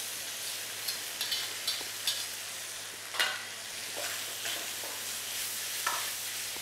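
Diced meats and bamboo shoots sizzling steadily in oil in a wok as they are stir-fried, with a metal ladle scraping and knocking against the wok a handful of times.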